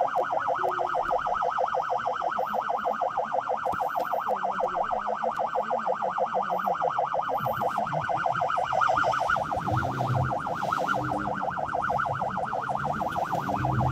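Ambulance siren on a fast warble, its pitch swinging up and down several times a second without a break, sounding on an emergency response and heard from inside the ambulance. A deeper steady tone joins briefly about ten seconds in and again near the end.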